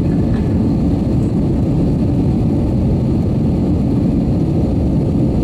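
Steady low roar of an Airbus A320-214's CFM56-5B turbofan engines and rushing air, heard inside the passenger cabin during the climb after takeoff.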